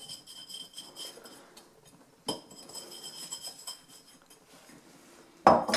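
Icing sugar being tipped and shaken from a paper bag into a mixing bowl: faint paper rustling and light clinks, with a sharp knock about two seconds in and a louder knock near the end.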